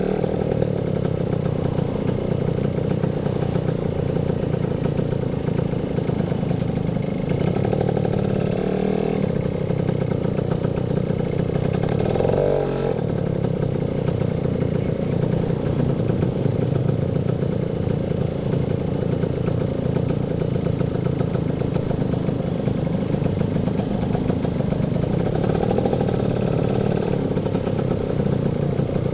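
Motorcycle engine running steadily while riding, with a brief change in its note about twelve seconds in.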